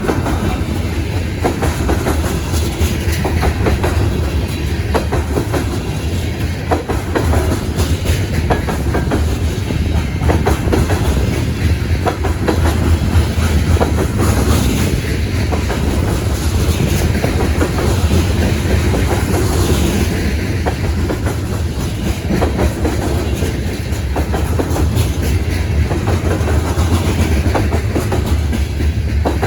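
Train cars rolling past, their wheels clicking steadily over the rail joints with a continuous rumble.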